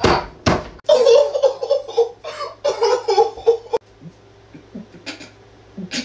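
A man laughing hard: loud breathy bursts, then a run of high-pitched, choppy laughter that stops about four seconds in.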